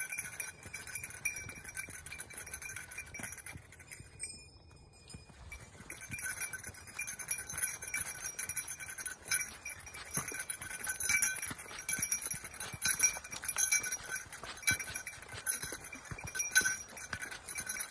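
Footsteps crunching along a dirt trail strewn with dry leaves, with a small bell jingling steadily as the hiker walks; the steps and the jingling pause briefly about four seconds in, then resume.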